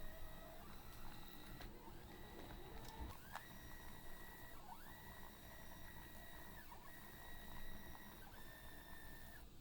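Stepper motors driving omni wheels, giving a thin whine that glides up in pitch as they speed up and then holds a steady pitch. It breaks off and restarts a few times as the robot changes moves, and stops near the end.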